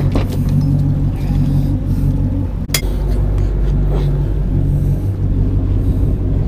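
Charter boat's engine running with a steady low drone, with clothing rubbing and knocking against the body-worn camera; the sharpest knock comes a little under three seconds in.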